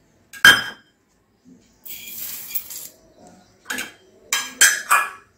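Stainless steel bowls clinking against each other as dry grains are tipped from a small bowl into a larger one: one sharp ringing clink about half a second in, a brief rush of grains pouring in about two seconds in, then three or four quick clinks and taps near the end.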